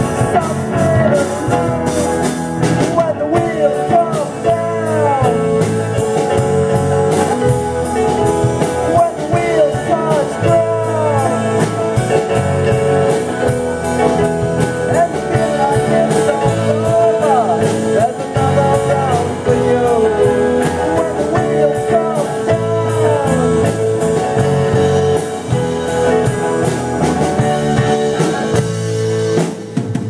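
Amateur rock band playing live, with drum kit, electric bass, electric guitar and keyboard. A lead melody bends up and down in pitch over a held note and a steady drumbeat.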